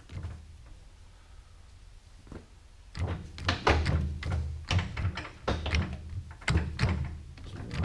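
A quick run of clunks and knocks, starting about three seconds in, from gear-change levers being shifted on an old Monarch engine lathe while its speed and feed are set.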